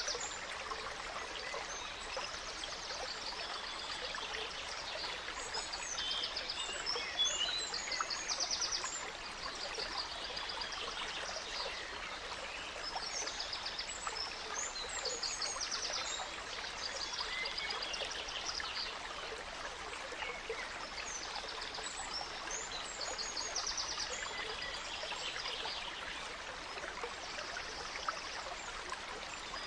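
Gentle stream flowing steadily, with forest songbirds singing over it in repeated high phrases and fast trills.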